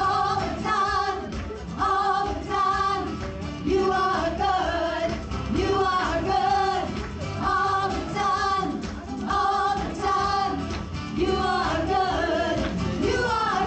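A group of women singing a worship song together into microphones, with instrumental accompaniment.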